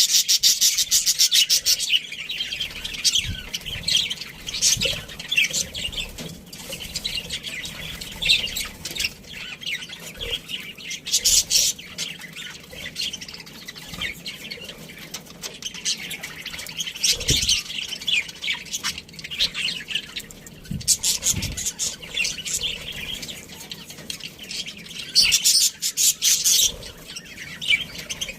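Several budgerigars chattering and chirping continuously, with busier bursts of rapid chatter near the start, around the middle and near the end.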